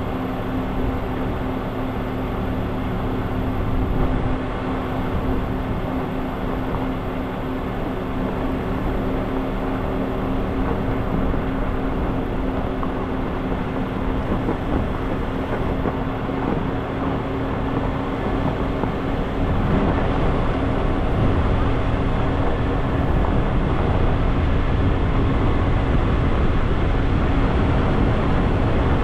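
A car driving, heard from a microphone on its hood: a steady engine drone under wind and road noise. About two-thirds of the way through, the rumble gets louder and rougher.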